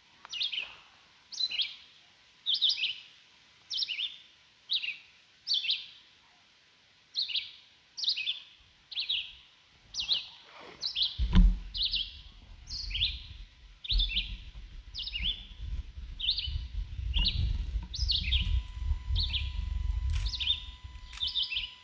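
A bird chirping over and over, a short sharp call about once or twice a second. About halfway through, a low rumble comes in underneath and becomes the loudest sound.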